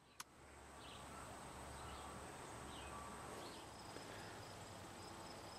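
Faint outdoor background with insects chirping: a few short high chirps, then a thin, rapidly pulsing high trill from about halfway through.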